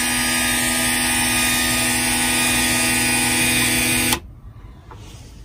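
Add-A-Motor coop door opener's electric gear motor running with a steady whine as it winds its fishing line to raise the coop door. It cuts off suddenly about four seconds in, when its rotating cam tab trips the limit switch at the top of the door's travel.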